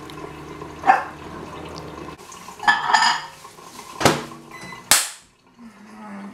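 A sudden sharp bang about five seconds in, a second after a lighter knock; it sounds startling, like a gunshot.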